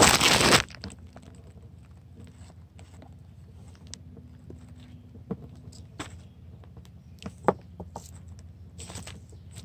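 A loud rustling clatter as the camera is set down, then a steady low hum with scattered faint clicks and rustles of a headlight wiring-harness connector being handled and plugged together.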